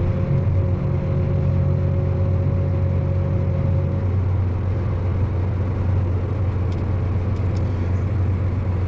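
Tractor and pull-type peanut combine running steadily while picking, a constant low drone. A higher steady whine fades out about four seconds in.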